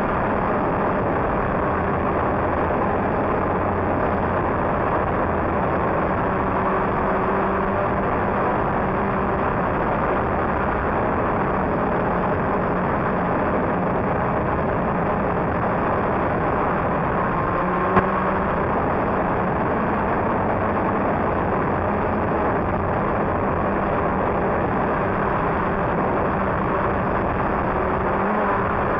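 DJI Phantom quadcopter's motors and propellers droning steadily in flight, heard through the microphone of a camera mounted on the drone, with one brief click about eighteen seconds in.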